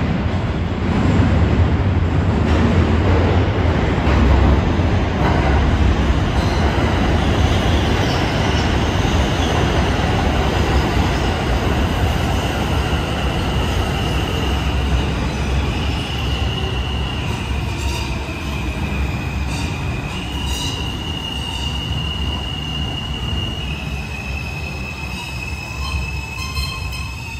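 R160 subway train running through an underground station with a loud, heavy rumble. About a third of the way in, high-pitched squealing tones rise above it and shift in pitch in steps, while the rumble slowly eases.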